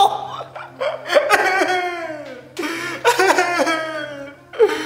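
A man laughing in several strained, drawn-out bouts, some cries falling in pitch.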